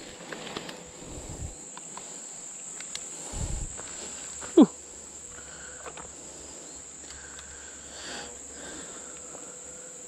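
Steady high-pitched chorus of insects, with a few low thumps of footsteps on the bank. A short loud squeak falls in pitch about four and a half seconds in.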